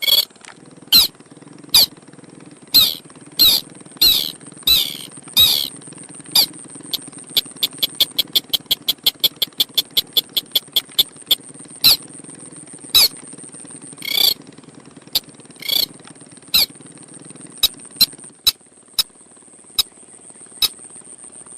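Crake (burung sintar) lure call: sharp, squeaky notes repeated about once a second, breaking into a fast even run of clicking notes in the middle before the single notes return. A steady high whine runs underneath, and a low hum stops near the end.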